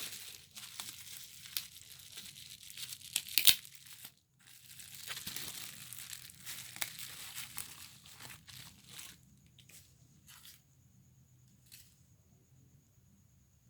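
Packaging being torn open and crinkled by hand, with a few sharp clicks about three and a half seconds in. After about nine seconds the sound thins to occasional faint taps.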